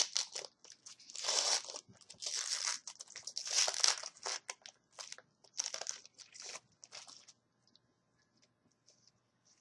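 Hockey card pack wrapper being torn open and crinkled in repeated bursts for about seven seconds, then only faint light ticks.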